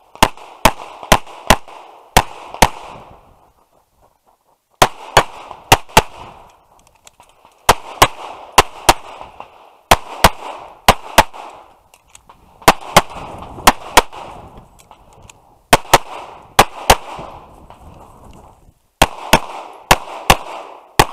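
Tanfoglio Stock 2 pistol firing fast strings of shots, two to four at a time a few tenths of a second apart, with short pauses between strings while the shooter moves and changes targets. A brief echo trails each string.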